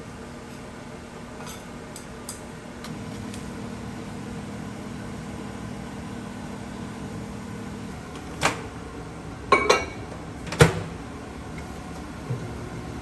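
Microwave oven running with a steady electrical hum. About eight seconds in the hum stops, and a few sharp clicks and knocks follow, the loudest near eleven seconds.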